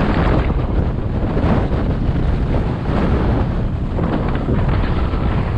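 Wind rushing over a GoPro action camera's microphone on a moving motorbike: a loud, steady low rumble of noise with no clear engine note.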